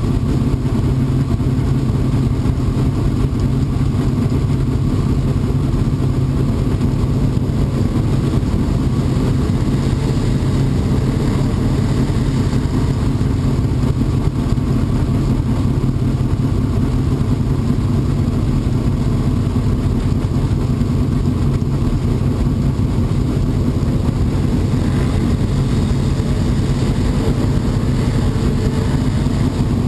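Dirt-track modified race car's V8 engine idling steadily, heard from inside the cockpit.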